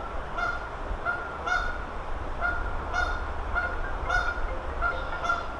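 A flock of geese honking, short calls repeating about twice a second.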